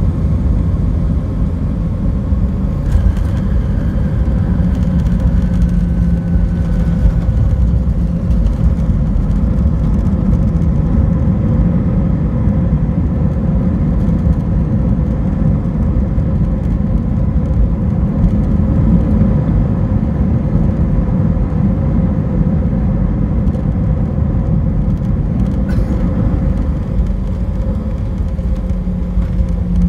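Airbus A319 landing rollout heard inside the cabin: a loud, steady rumble of engines and wheels on the runway as the jet slows with its ground spoilers up.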